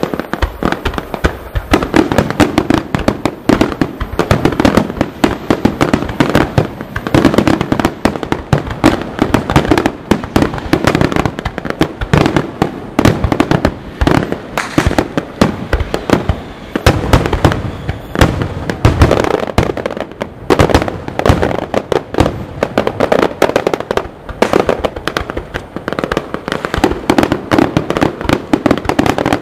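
Aerial fireworks going off in a dense, unbroken barrage: many sharp bangs and crackles a second, rising and falling in loudness.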